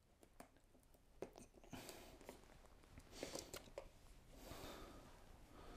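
Near silence with faint rustling and a few light taps as hands turn and handle a cardboard box.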